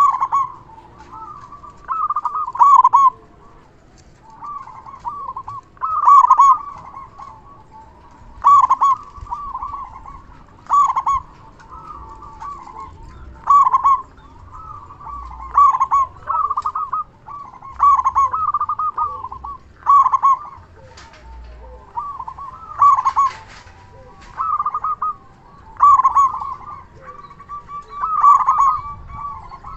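Local zebra dove (perkutut) singing its cooing song: phrases of quick, staccato coos repeated about every two and a half seconds, loud and full-voiced.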